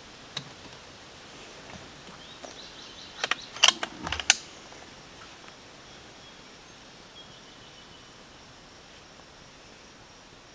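A quick run of sharp mechanical clicks and a low knock about three to four seconds in, from hands working the air rifle and chronograph at the bench, over faint outdoor ambience with distant birds.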